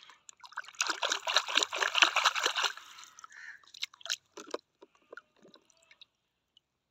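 Water splashing and sloshing in a plastic tub as a hand plunges in and stirs, then scattered drips as a plastic toy shark is lifted out of the water.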